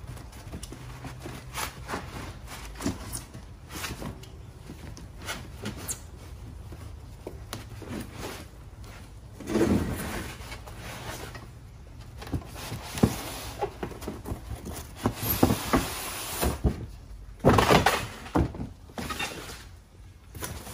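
Packaging being handled and opened to unbox a motorcycle swing arm: scattered knocks and clicks, with several bursts of rustling or tearing.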